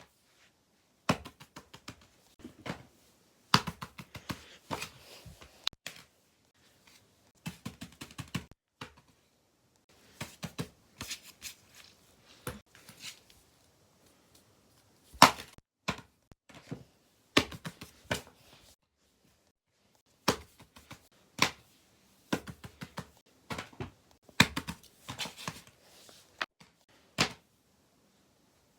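Fidget toys being handled and set down: irregular clicks, taps and knocks of small objects, in clusters broken by pauses of a second or two.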